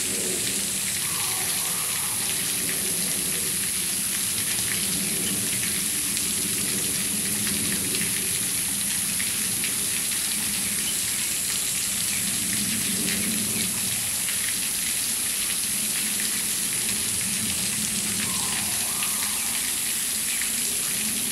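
Steady rush and patter of water running over the rocks of a shallow stream, with a constant high-pitched hiss above it.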